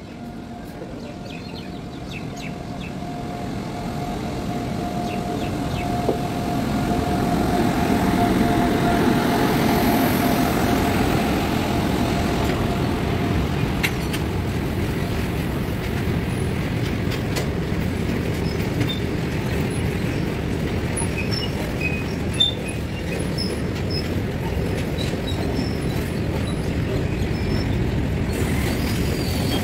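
A WAG-9 electric freight locomotive approaches and runs through the station, growing louder over the first eight seconds or so. A long rake of covered BCN goods wagons then rumbles and clatters steadily past on the rails. A thin steady high tone carries over the approach and fades out about twelve seconds in.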